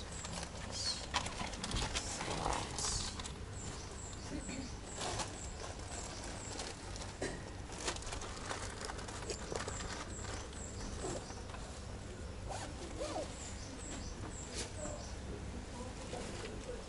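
Scattered light steps and knocks over a faint, high chirping in the background that repeats evenly about two or three times a second.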